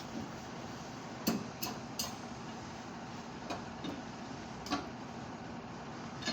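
Several sharp clicks and knocks at irregular intervals, the loudest about a second in, over a steady background noise.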